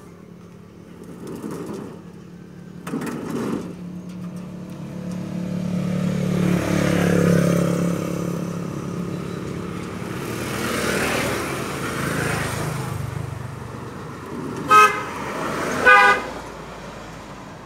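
A motor vehicle passing on the road, its engine swelling and fading, then a vehicle horn giving two short toots near the end.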